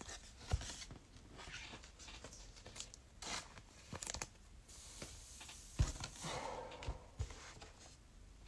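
Trading cards and foil pack wrappers being handled: scattered soft taps and clicks, brief rustles and tearing, and a longer crinkling rustle about six seconds in.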